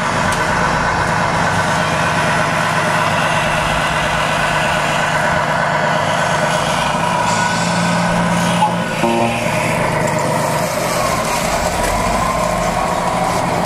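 Radio-controlled 1:14 scale trucks driving, giving a steady diesel truck engine sound.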